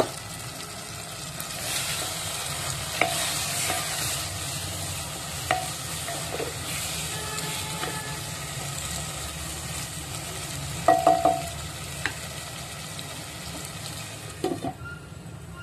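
Egg and tomato curry frying in a nonstick pot with a steady sizzle while a spatula stirs and scrapes through it. A few sharp knocks of the spatula against the pot come through, including a quick cluster about two thirds of the way in. The sizzle drops away near the end as the glass lid goes back on.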